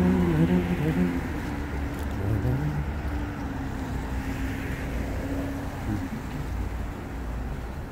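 Car engines and traffic on wet pavement: a steady low rumble with a hiss of tyres over it.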